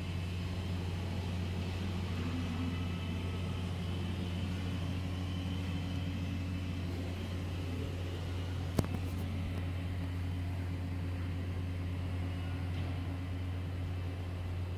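Steady low hum of indoor room tone, with one sharp click about nine seconds in.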